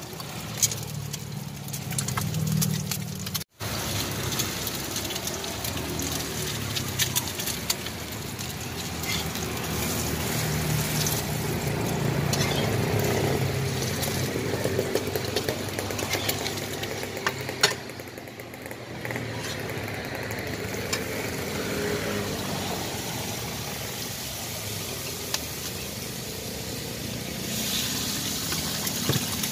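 Egg frying in oil on a flat stainless-steel griddle, sizzling, with a metal spatula scraping and tapping the steel, and one sharp tap a little after the middle. The sound cuts out for an instant a few seconds in.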